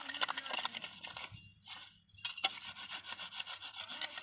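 A steel knife blade scraping against concrete in quick repeated gritty strokes. The strokes pause briefly a little past the middle, then a sharp click comes and the scraping resumes.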